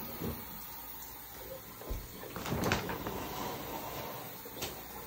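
Shower curtain being pulled aside, its rings scraping along the rod for about half a second midway, with a light knock shortly before and another near the end.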